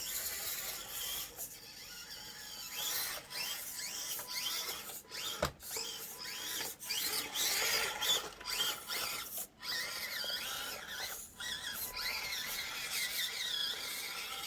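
Small electric motor and drivetrain gears of an Axial Deadbolt RC rock crawler whining, the pitch rising and falling as the throttle is worked, cutting out briefly a few times.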